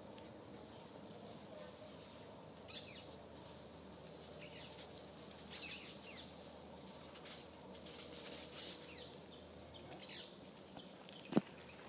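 Faint outdoor ambience with several short, high chirps scattered through it. Near the end comes one sharp knock, likely from young toque macaques clambering on a camera tripod and handling the camera.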